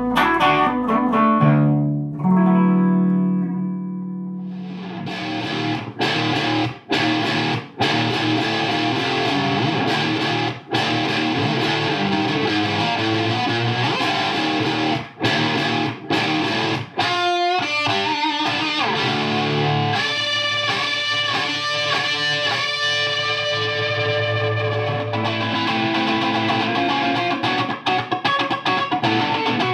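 Electric guitar played through a vacuum tube guitar amplifier with distortion. A few ringing notes are left to decay, then from about five seconds in comes dense, driven playing with a few short breaks.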